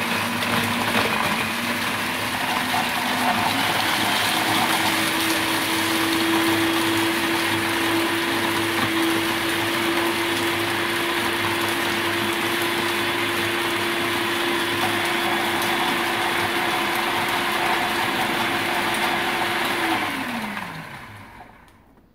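Philips food processor running, its blade grinding pieces of hard stale bread into breadcrumbs: a steady motor hum whose pitch steps up about four seconds in, then winds down with a falling pitch near the end.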